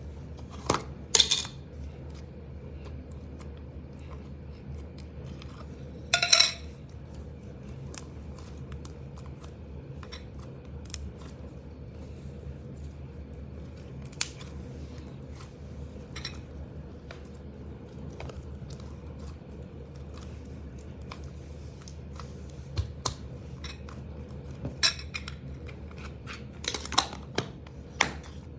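Slime being handled: scattered sharp clicks and snaps over a steady low hum, with louder bursts about one second in, about six seconds in and near the end.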